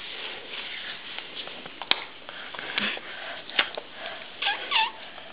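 A toddler eating an ice cream cone: a few soft mouth clicks and sniffs, then two short, high-pitched squeaks from her about four and a half seconds in.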